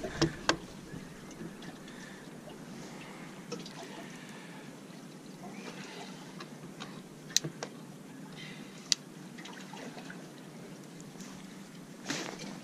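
Water trickling and lapping steadily over a low, even hum, with a few sharp clicks about seven and nine seconds in.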